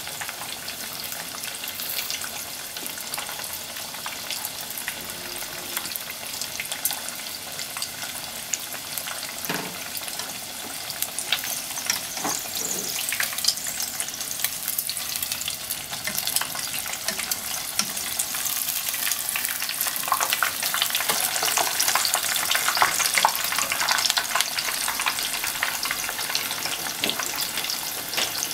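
Breaded pork cutlet (tonkatsu) deep-frying in hot oil: a steady crackling sizzle that grows louder in the second half, once the cutlet has been turned. A few soft knocks come around the middle.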